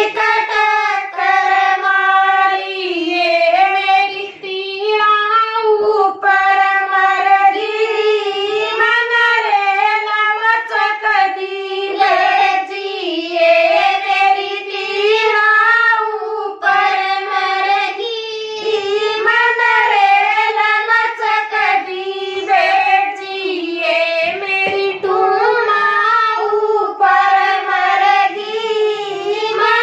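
Women singing a Haryanvi jakdi folk song together, unaccompanied, in long held phrases with short breaks between them.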